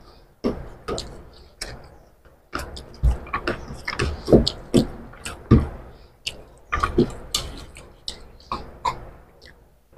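Eating sounds of rice and egg curry eaten by hand: wet chewing and lip smacks in a dense, irregular run of short clicks.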